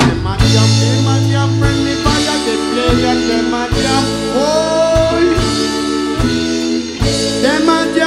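Live reggae band playing: drum kit, bass guitar and keyboard, with a trombone playing a line over them that slides in pitch near the middle.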